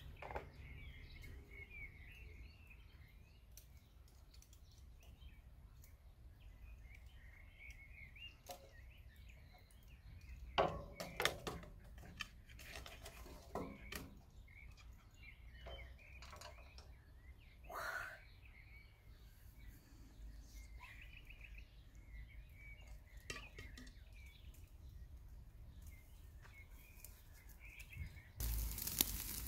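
Small birds chirping, with clusters of sharp knocks and clinks from grill tools and the charcoal being handled about a third of the way in and again a little later. A steady hiss starts shortly before the end.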